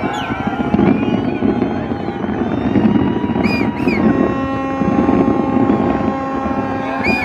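Crowd noise at a fireworks display, joined about four seconds in by a ship's horn sounding one long steady note. Two short high whistles come through, one about halfway and one near the end.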